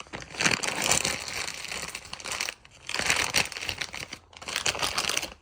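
A bag being crumpled and turned inside out, crinkling in bursts with two brief pauses.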